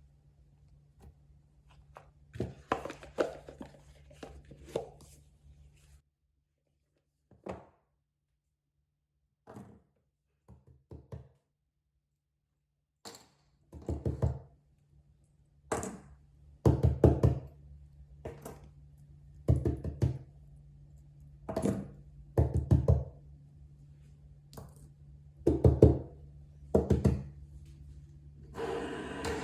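Plastic fidget toys being handled, set down and pressed: irregular knocks and clicks, some in quick clusters of several, over a faint low hum.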